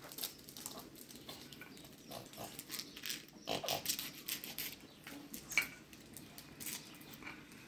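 Short non-speech vocal noises from small children, among scattered small clicks and rustles.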